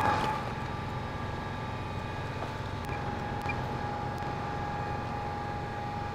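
A steady machine hum with a thin, steady whine that grows a little louder about halfway through, and a couple of faint ticks.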